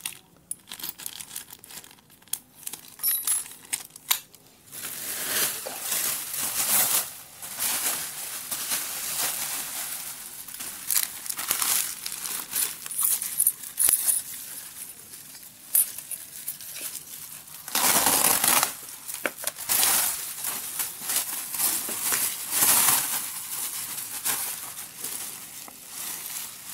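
Bubble wrap crinkling and rustling as it is handled and wrapped around small parts, starting about five seconds in and going on in uneven spells. Before that, a few light clicks and rustles of a small plastic bag being handled.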